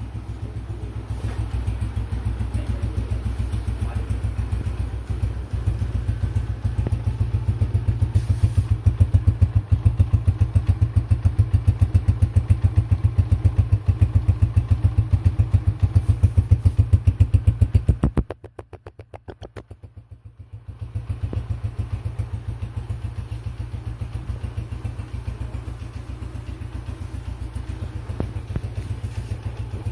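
Honda CG125 single-cylinder four-stroke engine running through an AHL-3 aftermarket silencer, a steady rapid deep exhaust beat. The level swells a little, drops sharply for about two seconds some two-thirds of the way through, then comes back to its steady beat.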